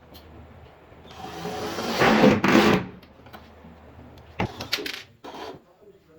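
Wood scraping and rubbing against wood for about two seconds, building up and stopping sharply, then a few light knocks and clicks.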